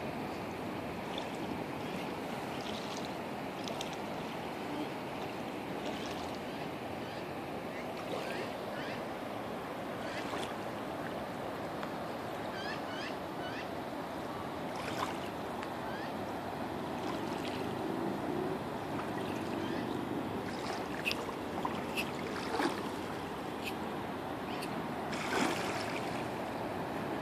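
Steady rush of the flooded North Saskatchewan River's water flowing through brush and over a paved path, with a few short high chirps and sharp clicks over it, mostly in the second half.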